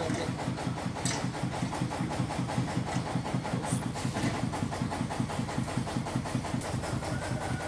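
Motor-driven grinder for peanut sauce running steadily, with a fast, even chugging pulse.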